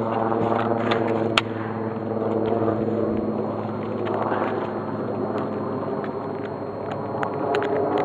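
A steady low hum made of several even tones, like a motor running, with a few sharp clicks, the loudest about one and a half seconds in.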